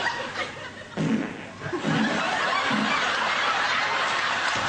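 Audience laughing: a few separate laughs at first, then a steady wash of laughter from about two seconds in.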